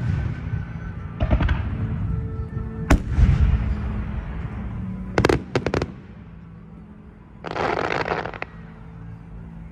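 Fireworks shells bursting overhead with sharp bangs: one a little before the 3-second mark and a quick run of three about five seconds in, followed by a dense crackling burst about a second long. Music plays steadily underneath.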